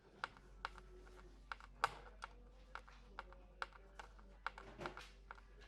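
A rapid, irregular run of sharp clicks and taps, roughly two to three a second.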